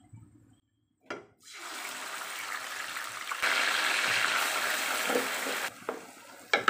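A knock about a second in, then hot oil sizzling steadily as a blended paste of onion, anchovies, ginger and garlic goes into the frying pan to be sautéed, easing off near the end.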